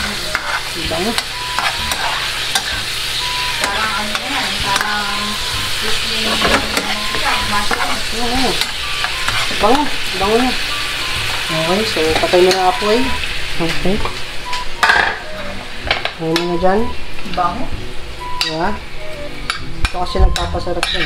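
Mushrooms sizzling in a caramelizing soy and sugar sauce in a nonstick frying pan over a high gas flame, stirred with a metal spoon that scrapes along the pan. The sizzle eases about fifteen seconds in, and near the end a few sharp clicks of the spoon are heard.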